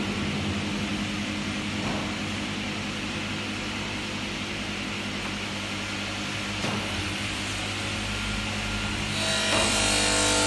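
Workshop machinery running with a steady hum. Near the end a louder, higher-pitched machine noise with a hiss joins it.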